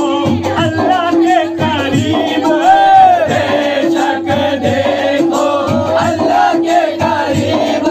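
Men singing a devotional chant together, a lead voice amplified through a handheld microphone with the group singing along.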